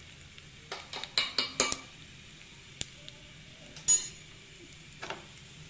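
Steel kitchen utensils clinking: a few light clinks and scrapes about one to two seconds in, then a sharper ringing clink about four seconds in.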